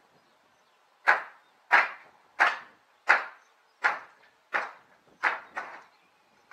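Eight sharp hammer blows on old wooden roof planks, struck about every 0.7 seconds, with the last two coming closer together.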